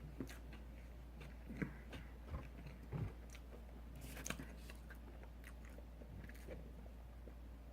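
A person biting and chewing food close to the microphone, with scattered soft crunches and wet mouth clicks over a steady low hum.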